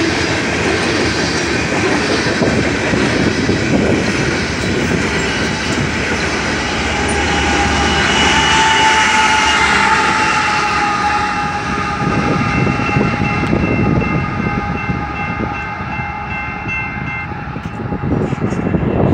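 BNSF grain train of covered hopper cars rolling past a grade crossing: a steady rumble and clatter of wheels on rail. From about seven seconds in, a steady whine joins as a trailing locomotive goes by, and it stops near the end as the train clears.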